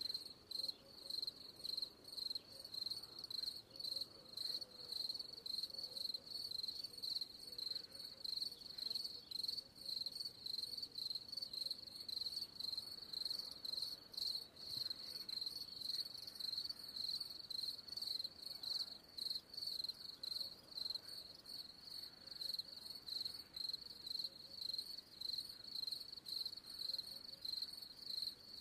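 Insects chirping in a steady, high-pitched, evenly pulsing rhythm, like crickets.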